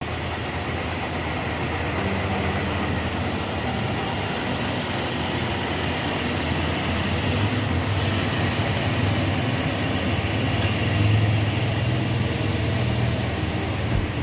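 Diesel engines of intercity tour coaches running, a steady low engine hum that grows louder about ten to thirteen seconds in.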